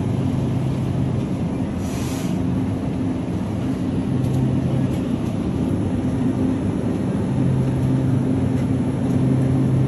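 Steady low machine hum with an even rush of air, typical of grocery-store refrigerated display cases and ventilation. The hum fades and returns a few times, and there is a short hiss about two seconds in.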